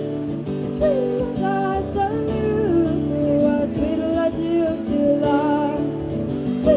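A woman singing a gentle melody over acoustic guitar.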